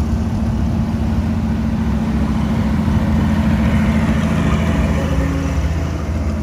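Antique farm tractor engine running steadily with a low, deep note as the tractor drives past, growing a little louder as it comes close about three to four seconds in.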